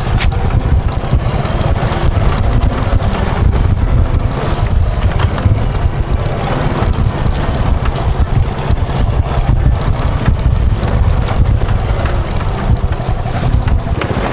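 Vehicle travelling along a road, with a loud, constant low rumble of wind buffeting the microphone.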